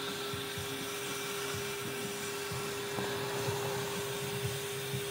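Steady mechanical hum and hiss with one constant whine held throughout, from machinery running at a ski area.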